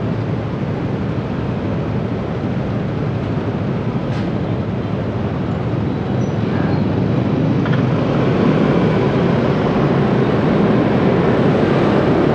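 Steady street traffic and road noise heard while moving along a busy city street, growing a little louder about halfway through.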